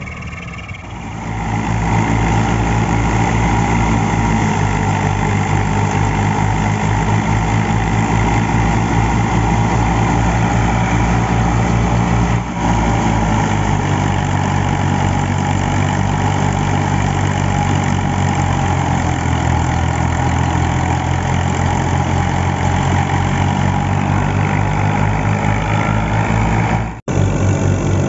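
A 1978 Fiat 480 tractor's three-cylinder diesel running steadily under load, driving a wheat thresher through its PTO, with the thresher's drum and fan whirring along. It gets louder about two seconds in.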